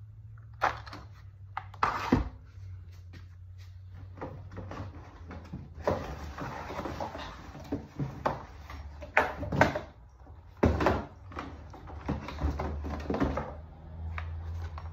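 Cardboard packaging rustling and scraping, with scattered knocks and clacks of hard plastic parts being handled, as a battery chainsaw and its parts are taken out of the box. The loudest knocks come about nine to eleven seconds in, over a low steady hum.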